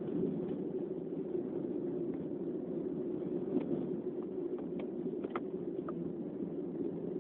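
Steady low rumble of background noise, with a few faint ticks near the middle.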